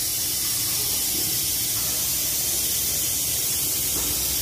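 A steady hiss, strongest in the high register, runs evenly throughout with a faint low rumble beneath; no distinct knocks or clanks stand out.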